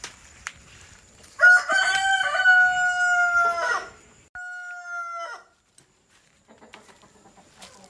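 Rooster crowing twice. A loud, long crow with a drawn-out held final note comes about a second and a half in, followed by a shorter, quieter crow.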